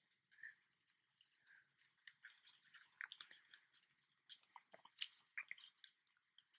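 Faint crinkling and crackling of paper as the flaps of a folded origami paper model are pulled out and creased by hand, scattered small crackles starting about two seconds in.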